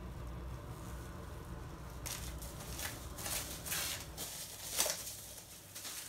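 Plastic cling film rustling and crinkling in uneven bursts as it is wrapped around a ball of dough, starting about two seconds in.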